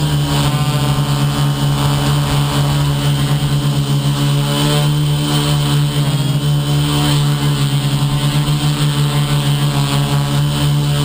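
Motor and propeller of an FPV model aircraft running in flight, a loud steady hum with many overtones whose pitch wavers slightly as the throttle shifts, the loudness fluttering rapidly.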